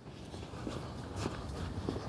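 Footsteps walking at an even pace, about three steps a couple of seconds apart, over a low steady background rumble.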